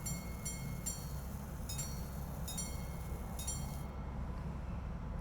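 Antique repeater pocket watch striking the time on its gongs: a run of evenly spaced ringing strikes, about three a second, ends about a second in, and after a short pause a second run on a different tone follows until a little before four seconds in.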